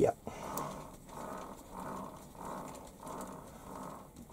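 Warco lathe's chuck being turned round by hand in repeated pushes, giving a soft whirring from the spindle and headstock with each push, about one and a half pushes a second.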